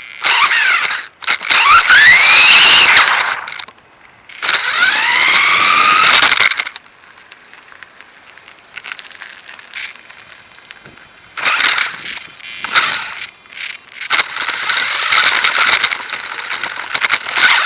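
Dromida DB4.18 RC buggy's electric motor whining as it speeds up and slows, its pitch rising and then falling, under a harsh rushing noise. It runs in bursts: two long runs, a quiet gap, a few short bursts, then a long run near the end.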